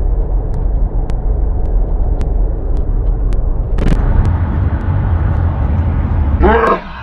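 Loud, steady low rumble, with one sharp click about four seconds in. Near the end a person's voice briefly rises and falls in pitch.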